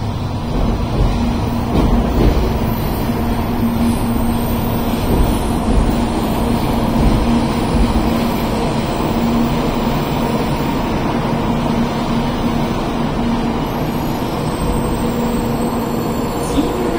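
Shinkansen train at the platform, a loud steady rumble with a constant low hum running under it.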